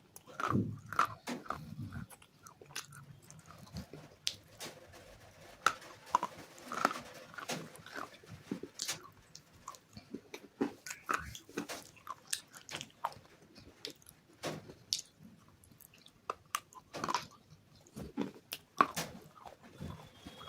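Close-up biting and chewing of hard, crunchy bars coated in white chalk paste: irregular sharp crunches and snaps, with duller chewing thuds in the first couple of seconds.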